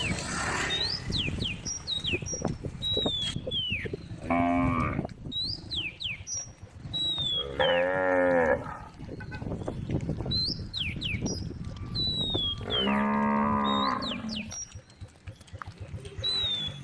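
Cows mooing three times, about four, eight and thirteen seconds in; each moo lasts about a second, and the last is the longest. Short high chirps sound throughout.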